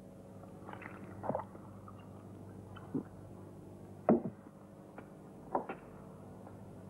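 Someone slurping rice porridge from a bowl: about four short slurps, over a steady low hum.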